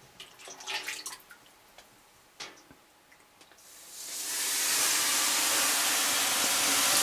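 Water splashed onto the hot stones of a sauna heater, flashing into steam: a loud hiss that swells up a little past halfway and then holds steady. Before it there are only a few faint clicks.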